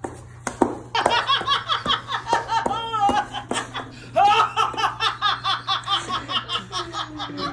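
A woman laughing hard: long runs of rapid, pitched "ha-ha" bursts, starting about a second in and going on without a break.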